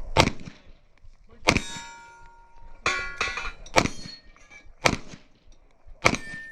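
Pistol shots fired at an uneven pace, about seven in all, each a sharp crack. Several are followed by a metallic ring as rounds strike steel plate targets.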